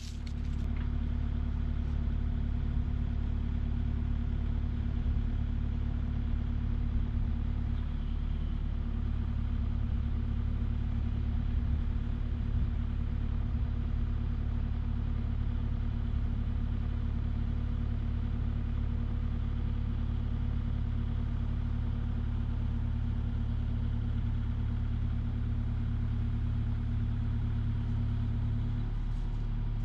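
Kubota KX40 compact excavator's diesel engine running steadily under load as its forks lift a pair of roof trusses. The engine note changes near the end.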